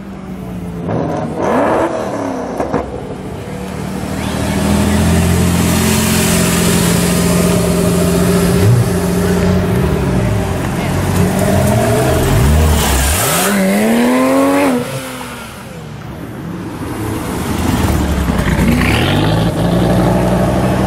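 Several sports car engines revving and accelerating hard past one after another, the engine pitch climbing and falling as each car goes by. The sound drops briefly about fifteen seconds in, then the next car revs up.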